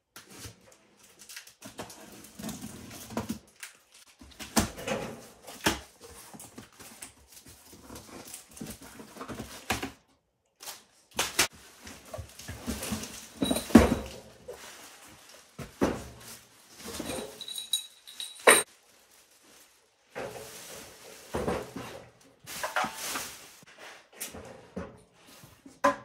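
Cardboard box and packaging being opened and handled: flaps rustling, plastic wrap crinkling, and irregular knocks and thuds as a small engine is lifted out and set on a wooden bench. A brief high squeak sounds about 18 seconds in.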